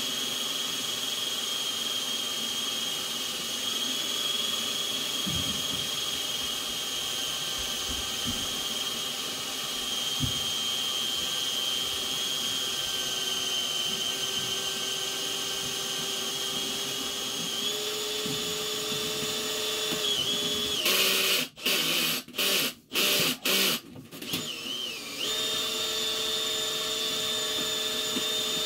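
Drain-cleaning machine running with a steady high whine while its yellow line works inside a sewer cleanout, the pitch stepping up slightly about two-thirds of the way through. Near the end a louder rushing noise cuts in and out several times over about four seconds, and then the whine carries on a little higher.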